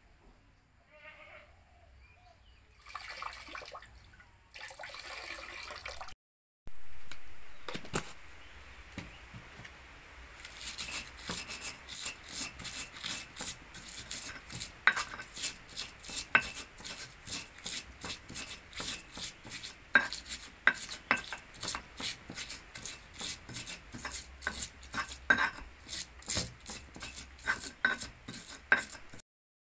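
Stone pestle crushing and grinding shallots, garlic and red chillies in a stone mortar: a steady run of stone-on-stone knocks and scrapes, about two to three a second, from about ten seconds in. Before that, a few seconds of water splashing at a tap.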